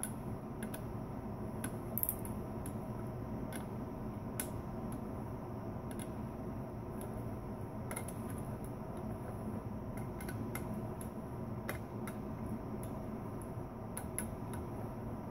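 Torque wrench on the camshaft bearing-cap nuts, rechecking each at 15 ft-lb: irregular light clicks one after another, over a steady hum.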